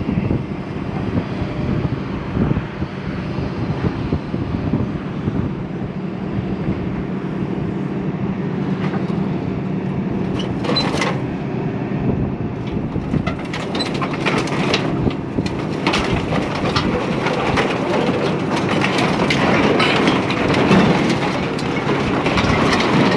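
Scrap metal clanking and rattling as it is thrown off a trailer, the impacts growing dense about halfway through, over a steady engine idle and wind noise.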